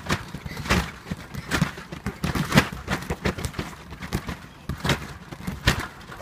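Two children's bare feet landing on a wet trampoline mat: an irregular run of thuds, about two a second.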